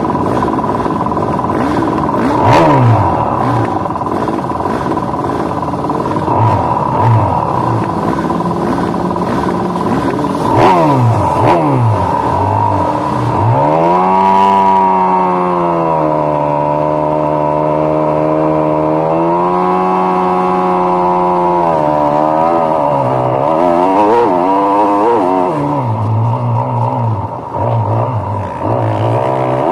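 Several motocross dirt bike engines running together on the start line, revved over and over. The nearest bike is twice revved up and held high for a few seconds in the middle, and the engine noise drops and changes near the end as the bikes pull away.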